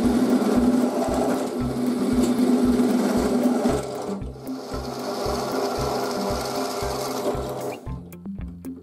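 Drill press boring a hole through a metal plate held in a machine vise. The cutting noise is steady, dips briefly about halfway and drops away near the end. Background music with a steady beat plays underneath.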